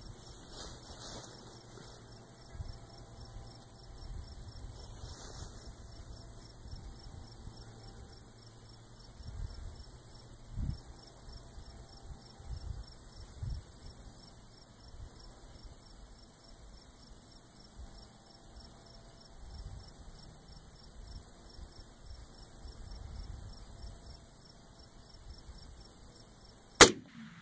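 Insects chirping in steady rapid pulses, with gusts of low wind rumble on the microphone. Near the end a single AR-10 rifle shot cracks out, the loudest sound, with a short echo after it.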